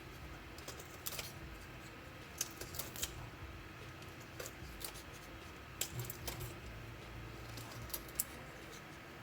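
Scattered small metallic clicks and clinks of a multitool being handled, coming every second or so at irregular intervals.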